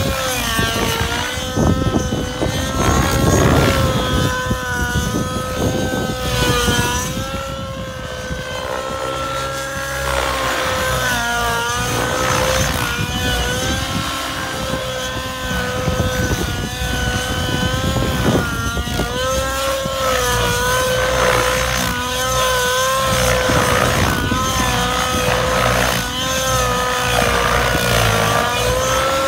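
Nitro engine of an Align 700XN radio-controlled helicopter running hard through low-level aerobatics, a steady whine whose pitch wavers slightly as the load changes.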